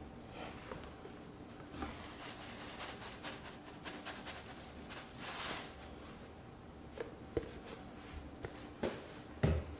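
Quiet kitchen with faint handling noises: a few light clicks and soft rustles, with a short soft hiss about five seconds in and small ticks near the end.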